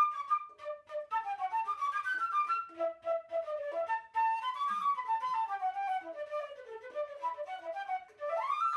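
Concert flute playing a quick solo melody of many short notes running up and down, then sliding up into a long held high note near the end.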